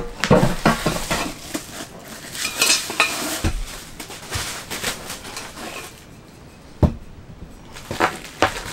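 Sheet-steel stove pipe sections and stove parts clanking and knocking as they are pulled out of a wood stove's firebox and set down on a plywood floor, with rustling of the parts' wrapping. The clatter is busiest in the first three seconds, then thins out, with one sharp knock about seven seconds in.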